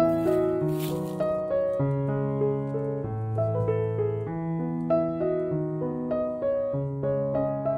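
Background piano music, notes and chords changing about every half second to second. Near the start there is a short scrape of a spatula sliding under a cabbage roll in a glass baking dish.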